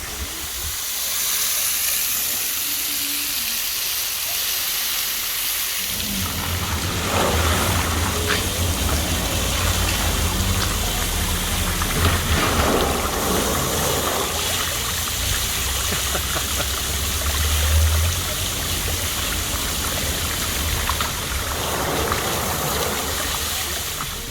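Waterfall water pouring down onto a road, a steady rain-like hiss of falling water. About six seconds in, a low rumble joins it.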